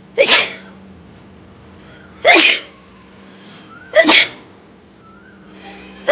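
A woman sneezing three times, about two seconds apart, each sneeze sharp and short, with a fourth beginning at the very end. The sneezes are forced, brought on by tickling the inside of the nose with a thin stick.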